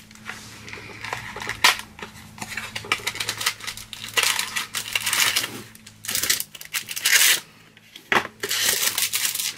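Packaging crinkling and rustling in irregular bursts while a set of coasters is unwrapped, with a few sharp clicks and knocks from handling.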